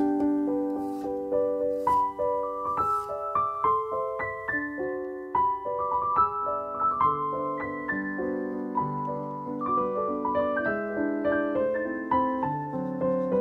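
Solo piano background music playing a gentle melody. In the first three seconds, a few faint taps of a kitchen knife slicing garlic on a wooden cutting board, about one a second.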